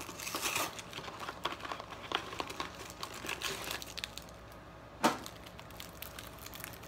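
Plastic wrapper of a pack of baseball cards crinkling and rustling in the hands as it is worked open, with one sharp click about five seconds in.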